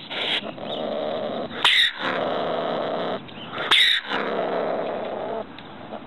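Ringtail (Bassariscus) calling: drawn-out rough calls, each a second or more long, broken by two short, loud, sharp cries about two seconds apart, then shorter, quieter calls near the end.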